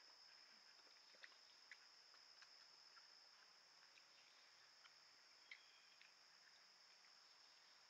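Faint chorus of insects: a steady, high, even trill, with a few small clicks scattered through it.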